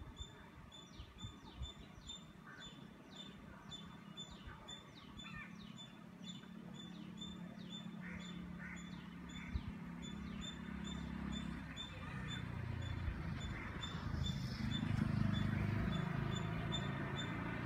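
Birds chirping repeatedly, short calls about twice a second. Under them, the low hum of an approaching train comes in about a third of the way through and grows steadily louder toward the end.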